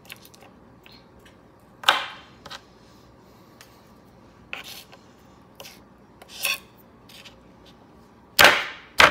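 Chef's knife knocking and scraping on a plastic cutting board while garlic cloves are cut: irregular sharp knocks a second or so apart, the loudest two close together near the end.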